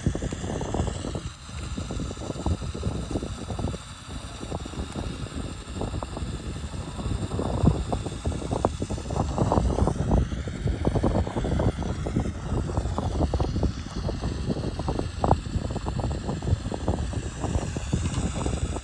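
LEGO Technic 42129 Mercedes-Benz Zetros truck's electric motors whining under load, its drivetrain clattering as it crawls slowly up a steep 30-degree ramp. The whine shifts slowly in pitch as the load changes.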